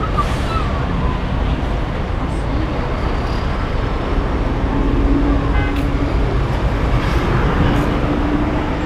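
Street traffic noise: a steady rumble of cars driving past on the road. A low steady hum rises out of it twice in the second half.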